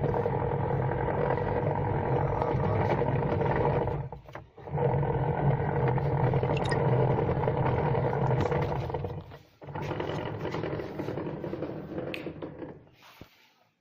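Washing machine motor humming under power in three runs of about four to five seconds, each broken by a brief stop before it starts again, then winding down near the end. The repairer says the machine is not taking the load.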